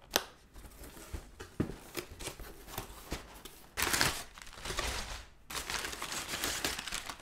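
Crumpled kraft paper packing in a cardboard box, rustled and crinkled as a hand digs through it. A few light knocks come near the start, and a louder burst of crinkling about four seconds in.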